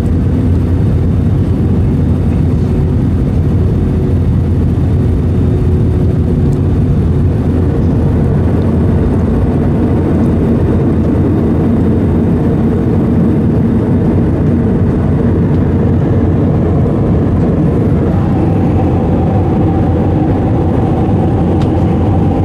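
Steady in-flight cabin noise of an Airbus A320: a loud, even rumble of engines and airflow. A faint higher steady tone joins near the end.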